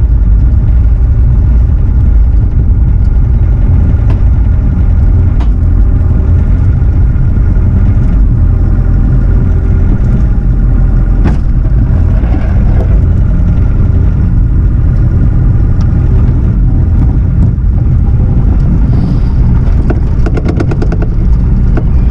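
Diesel engine of Bobcat earth-moving equipment running steadily at working throttle, heard close up, with a few sharp metal knocks and some fast ticking near the end.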